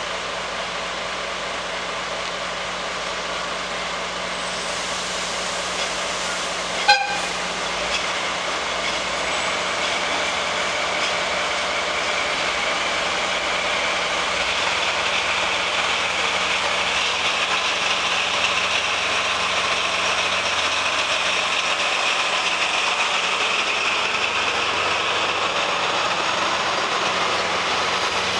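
JNR Class DE10 diesel-hydraulic locomotive running, giving one short horn toot about seven seconds in, then pulling away with its 35-series passenger coaches. From about midway the running noise grows louder as the coaches roll past.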